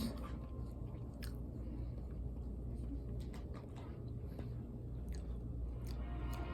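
Chewing and biting food close to the microphone, with a handful of small, scattered crunches and clicks over a steady low hum.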